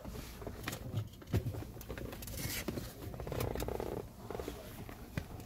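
Light scattered clicks and rustling from parts being handled around an exposed steering column.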